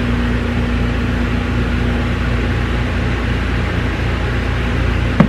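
Steady mechanical whir with a constant low hum from a running room appliance. A sharp knock comes right at the end.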